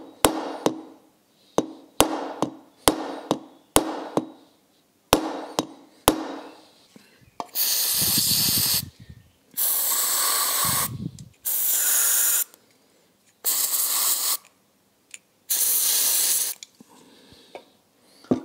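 A small hammer tapping the throttle butterfly shaft of a Weber 40DCOE carburettor, about a dozen light metallic taps with a short ring, to knock the shaft out of its worn bearings. Then an aerosol can of penetrating spray hisses in five bursts of about a second each onto the shaft.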